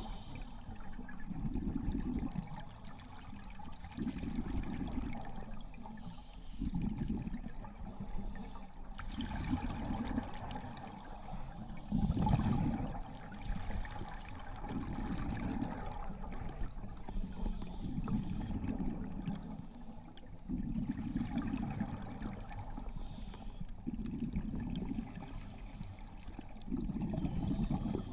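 A scuba diver's regulator breathing underwater: bubbles gurgle from the exhaust in a surge every two to three seconds, with each breath out.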